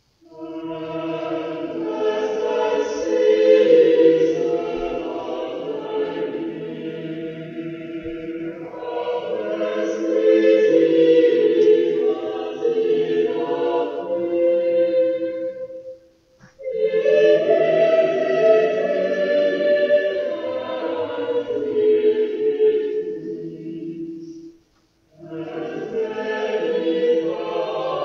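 Choir singing sacred music in long phrases, breaking off briefly twice, about 16 and 25 seconds in.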